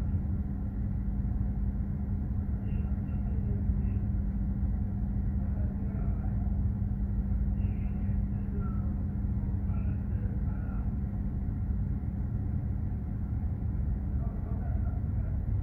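Container ship under way: a steady low rumble from the ship's engine and machinery, with a constant hum running through it.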